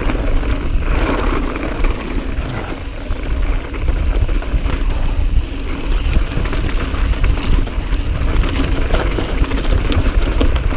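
Mountain bike descending a loose, dusty dirt trail at speed: steady wind buffeting the microphone over the tyres rolling and scrabbling on loose dirt, with scattered clicks and rattles from the bike.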